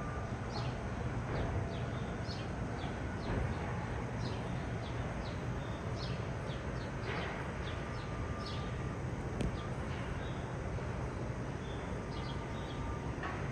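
Outdoor city ambience: small birds chirping in short repeated calls over a steady low rumble of traffic.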